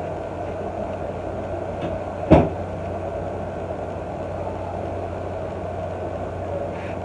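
Steady background hum with a single short thump a little over two seconds in.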